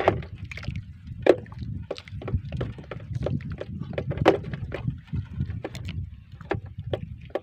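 Irregular knocks and slaps on a small wooden outrigger boat's hull as a multi-hook handline is hauled in hand over hand and hooked scad drop and flap in the bottom of the boat, over a steady low rumble. The loudest knocks come at the very start, about a second in and about four seconds in.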